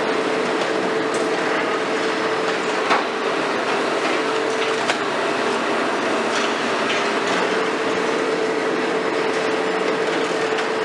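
High-reach demolition excavator (KMC 400, built on a Hitachi 350) running steadily with a constant whine, broken by a few sharp knocks from the demolition work.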